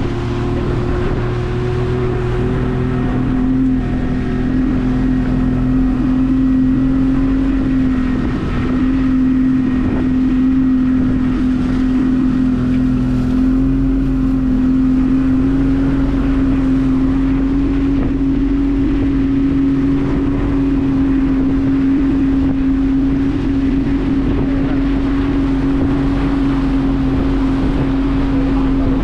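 Fishing boat's engine running steadily under way while trolling a lure for tuna. Its note settles a little lower about three seconds in, then holds even.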